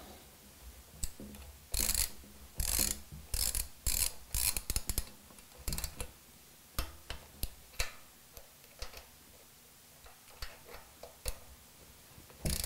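Ratchet of a torque wrench clicking in several short bursts, then scattered single clicks, as the rocker shaft hold-down nuts on the engine's cylinder head are tightened to 14 lb-ft.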